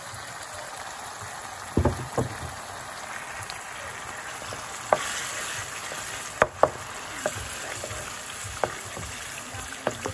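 Tomato bolognese sauce sizzling in a non-stick pan as a spatula stirs it, with sharp knocks of the spatula against the pan every second or so, the loudest as a pair about two-thirds of the way through.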